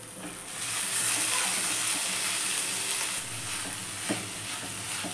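Grated pumpkin and cabbage sizzling in a hot stainless steel pan as a wooden spatula stirs them, the steamed vegetables now cooking uncovered so their water dries off. The sizzle comes up about half a second in and holds steady, with a couple of light spatula scrapes against the pan near the end.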